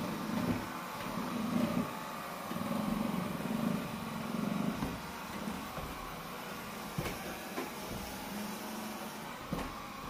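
Robot vacuum cleaner running, a steady whirring hum from its fan and brushes as it moves, with a few short clicks in the second half.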